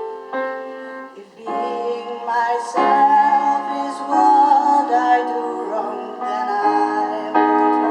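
Music: piano notes, joined about a second and a half in by a woman singing with vibrato over the piano.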